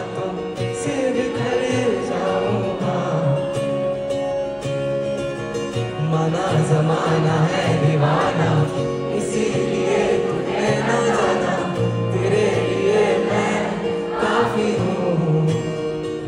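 Live acoustic guitar strummed under singing, with many voices of the audience singing along together.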